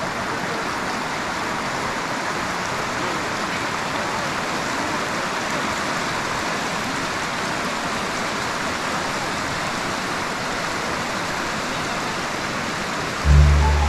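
Steady rush of a river flowing over rocks, an even wash of water noise. Near the end, music with a heavy bass line starts over it.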